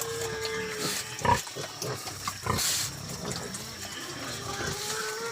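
Pigs (a sow with her piglets) grunting and squealing, with short loud calls about a second and two and a half seconds in, over a thin steady note in the first second and a half.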